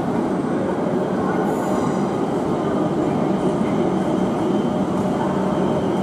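Greater Anglia electric multiple unit rolling slowly along a platform, a steady rumble of wheels and running gear under the station's trainshed roof.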